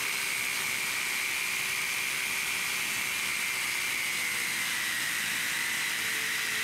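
DualSaw CS 450 counter-rotating twin-blade circular saw with diamond blades cutting a stone tile: a steady high whine over a grinding hiss, the pitch sagging slightly about two-thirds of the way through as the blades take load.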